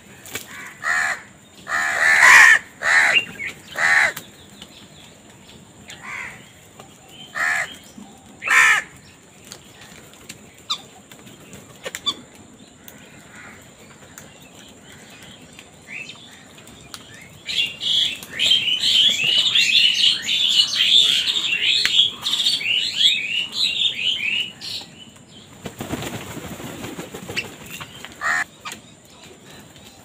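House crows cawing: a string of loud, harsh caws through the first nine seconds or so. In the second half comes a dense run of rapid, high chattering calls lasting several seconds, followed by a brief rustle.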